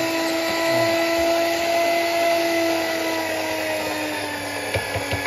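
Electric tomato-milling machine's motor running with a steady whine, its pitch sagging slightly about four seconds in, with a few short knocks near the end.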